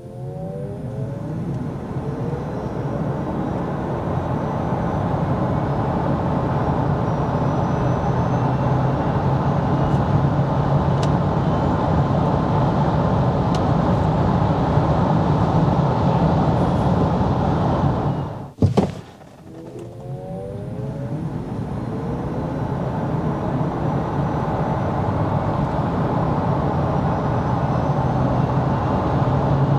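Maxus eT90 electric pickup launching hard from standstill, twice. Each time a brief electric-motor whine rises in pitch over the first couple of seconds, and tyre and road noise builds as the truck gains speed. A sudden cut about 19 seconds in separates the two runs.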